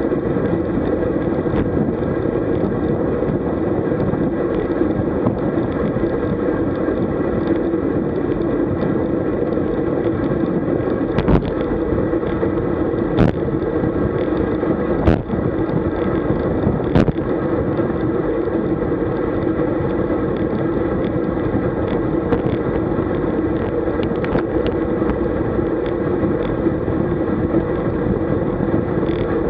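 Steady wind rush over a bike-mounted camera's microphone, with road and tyre noise from a road bike riding at about 40 km/h. Four sharp knocks come about two seconds apart in the middle.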